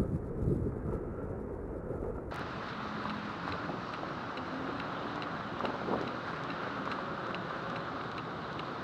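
Wind buffeting the microphone of a moving camera. About two seconds in it changes abruptly to a steady rushing hiss with faint, regular ticks two or three times a second.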